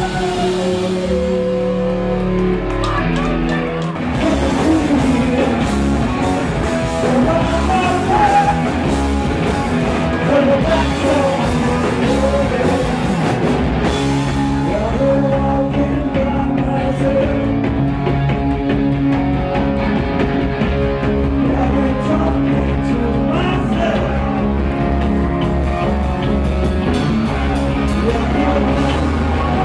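Punk rock band playing live: distorted electric guitar, bass and drums, with a singer's vocals over them.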